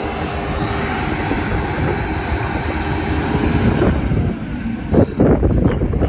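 A JCB 3CX backhoe loader's diesel engine runs steadily under load while the rear hoe works the bucket in sand. A few sharp clunks come about five seconds in.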